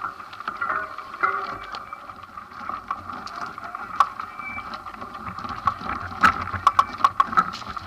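Mountain bike rolling down a loose, rocky gravel trail: a steady crunch of tyres on gravel and the bike rattling. Sharp knocks and clicks of stones and parts come thick and fast near the end.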